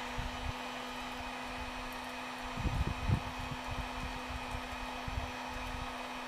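Electric heat gun blowing steadily with an even hum, heating a fishing rod tip-top to soften its glue so it can be pulled off. A few low rumbling bumps come through about halfway in.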